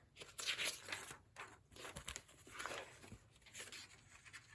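Pages of an old book being turned and handled: several soft, separate papery rustles.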